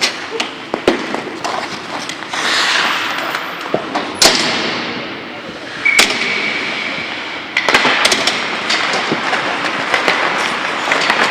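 Ice hockey in play on a rink: sharp clacks of sticks and puck striking sticks and boards, many times, over the scrape of skate blades on the ice.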